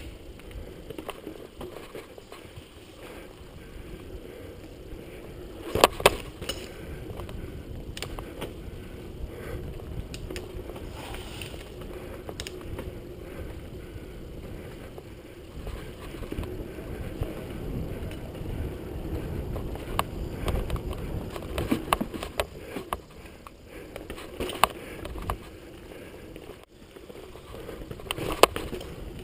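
Mountain bike riding fast down a dirt forest trail: a steady rumble of tyres and wind, broken by rattling clanks and knocks of the bike over bumps, loudest about six seconds in and again near the end.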